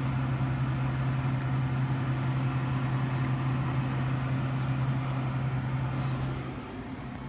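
A steady low hum with an even hiss over it; the hum fades away shortly before the end.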